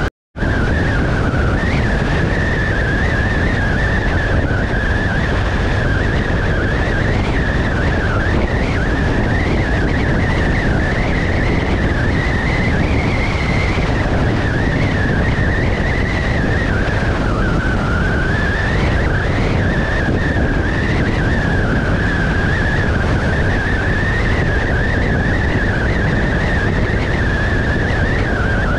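Motorcycle riding at speed, heard from an onboard camera: heavy wind rush over the microphone with the engine running and a steady whine that wavers a little in pitch. The sound drops out briefly right at the start.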